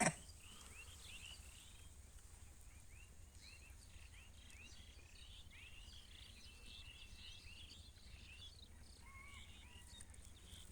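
Faint birds chirping outdoors: many short, quick chirps and whistled notes in a busy chorus, over a thin steady high-pitched insect drone and a low hum. A single sharp click at the very start is the loudest sound.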